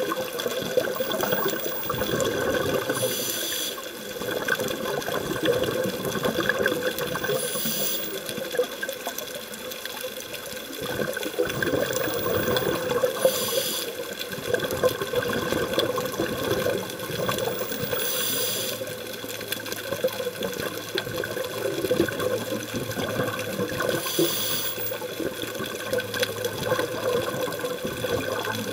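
Scuba diver's breathing heard underwater: a short hiss from the regulator about every five seconds, with bubbling and gurgling of exhaust bubbles in between.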